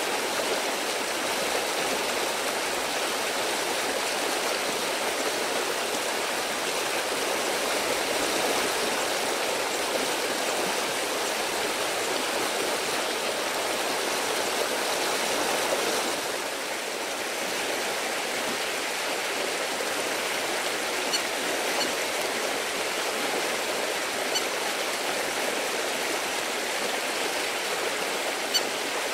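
Steady, even rushing noise like wind or running water, with no voices, plus a few faint short clicks in the last third.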